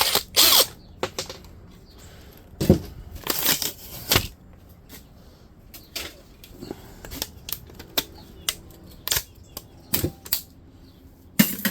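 Irregular clicks, clanks and knocks of tools and metal and plastic parts being handled while a dehumidifier is taken apart. The loudest knocks come in the first second and again around three to four seconds in.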